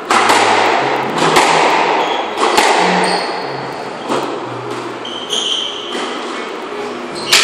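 Squash rally in an echoing court: the ball is struck by rackets and smacks the walls about once a second, each hit followed by reverberation. Shoes squeak briefly on the wooden floor midway through.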